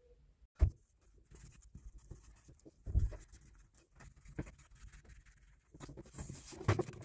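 Stationery handled on a desk while a paper planner is decorated: a sharp knock about half a second in, a second knock near the middle, and light rustling and small taps between them, busiest near the end.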